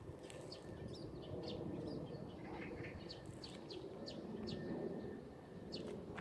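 Small birds chirping, short high calls repeated many times, over a low steady background rumble.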